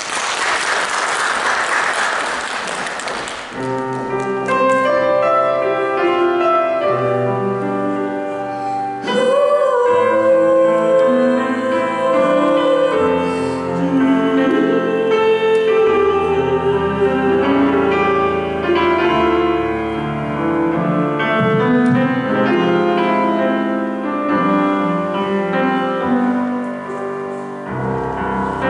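Concert performance of a female vocalist with grand piano accompaniment: about three seconds of applause, then a slow piano introduction, with the voice coming in about nine seconds in and singing a held, wavering melody over the piano.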